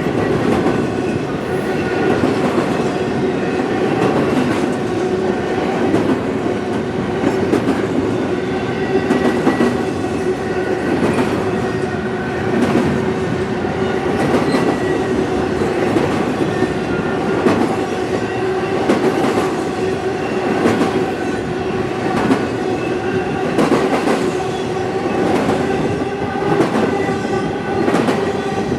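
Freight train cars rolling past close by, their wheels clacking over rail joints in an uneven rhythm, with a steady ringing tone held underneath.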